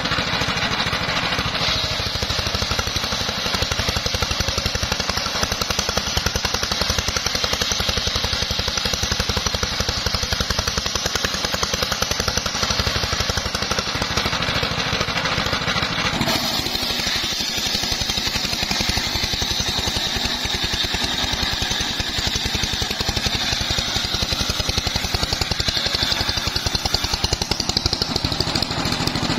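A homemade circular-saw bench, driven by a stationary engine, running steadily with a dense, rapid engine pulse as its blade rips mahogany log sections into beams. A high, steady whine sits over the engine, and the sound changes abruptly a little over halfway through.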